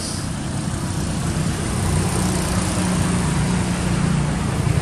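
A motor vehicle engine running steadily: a low rumble that grows a little louder about two seconds in.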